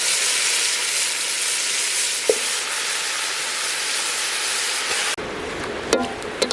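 Food sizzling in a hot pan, a steady hiss that cuts off abruptly about five seconds in. A few light clinks and knocks of utensils follow.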